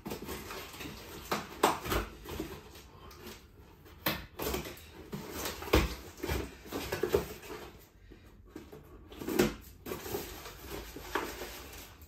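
Scissors cutting open the taped seams of a small cardboard box, with cardboard rustling and scattered, irregular clicks and knocks as the box is handled.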